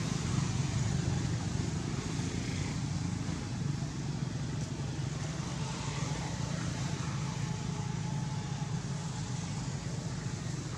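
Steady low motor hum under a constant background hiss.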